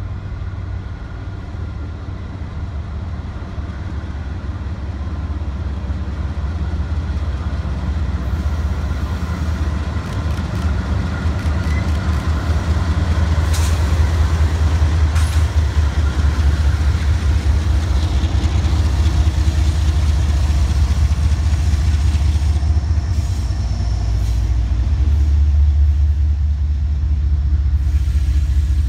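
Two CSX diesel locomotives pulling a passenger train pass close by, their engines a low rumble that grows louder as they come alongside. They are followed by passenger cars rolling past with wheels clicking over the rail joints.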